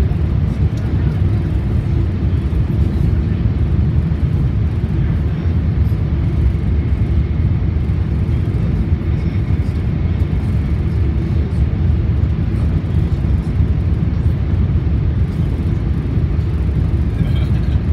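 Steady low rumble of an E4 series Max double-decker Shinkansen running at speed, heard from inside the passenger cabin.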